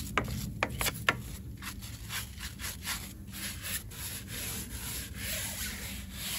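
Bristle brush scrubbing a wet car tyre and wheel: a steady rubbing hiss of strokes back and forth, with a few sharp clicks in the first second or so.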